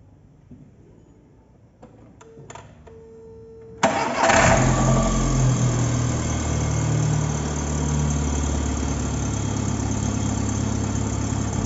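After a few faint clicks and a short steady tone, the VW Gol's 1.0 8-valve Power four-cylinder engine is cranked and starts almost at once, about four seconds in. It flares briefly, then settles into a steady idle. The engine runs quietly with its lifters freshly serviced, and the mechanic puts the remaining noise down to the exhaust manifold ("surdina") and its gasket.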